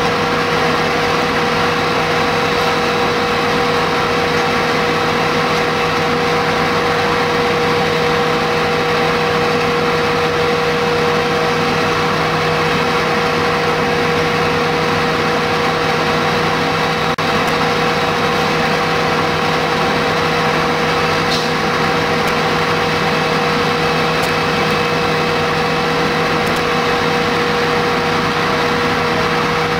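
Parked fire engines' diesel engines running steadily: a constant engine drone with a steady hum that does not change.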